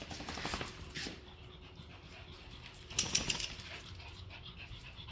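Small dogs sniffing one another and moving about on a tile floor, with a short, louder noise about three seconds in.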